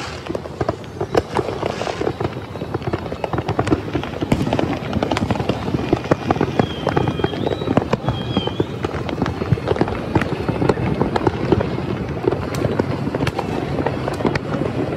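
Many fireworks popping and crackling at once, a dense unbroken run of bangs and crackles, with a short high tone heard twice around the middle.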